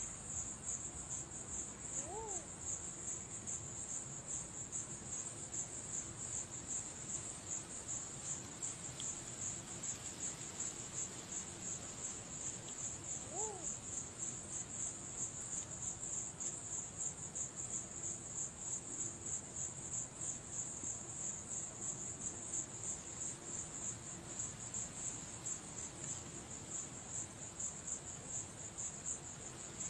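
A steady chorus of insects trilling at a high pitch with a fast pulse. Two faint short calls rise and fall, one about two seconds in and one about thirteen seconds in.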